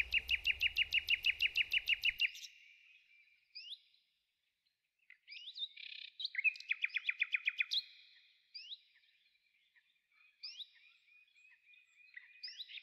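A songbird singing: a fast trill of evenly repeated notes at the start, a second trill about six seconds in, and short chirps in between and after. A low rumble under the first trill stops abruptly about two seconds in.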